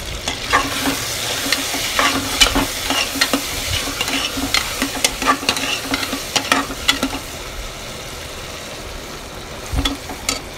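A steel spatula stirring and scraping onions, potatoes and tomato that sizzle in oil and ghee in a pressure cooker pot. The scraping strokes stop a little over two-thirds of the way through and the sizzle goes on, with a dull knock near the end.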